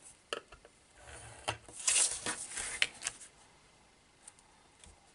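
Cardstock being handled and repositioned on a paper trimmer for diagonal scoring: light clicks and taps, with a paper rustle loudest about two seconds in.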